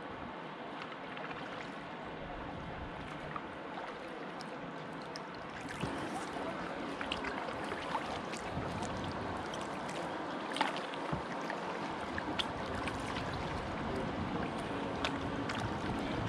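Kayak on the move on a river: paddle splashes and water rushing along the hull, with scattered small knocks. The sound gets a little louder and heavier about six seconds in.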